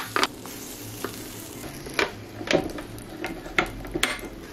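Pumpkin waffle batter sizzling on the hot plates of an electric waffle maker as it is spooned on, with a few sharp clicks of a spoon against the plates and batter bowl.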